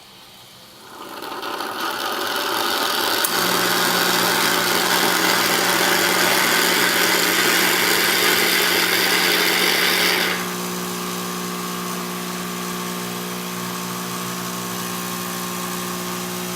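Lelit PL62T espresso machine dispensing hot water from its water wand with a rushing hiss. From about three seconds in, the machine's vibratory pump hums steadily. The hiss drops at about ten seconds while the pump keeps running.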